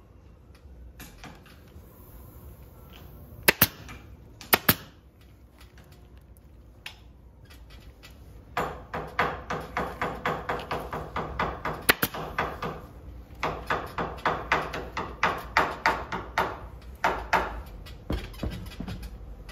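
Pneumatic upholstery staple gun firing staples into a sofa frame: two sharp double shots about a second apart, then two long runs of rapid shots, about three a second.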